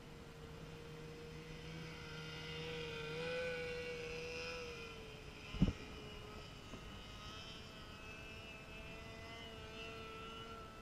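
Distant snowmobile engine running, its whine rising and falling in pitch as the throttle changes and loudest a few seconds in. A single sharp knock about halfway through.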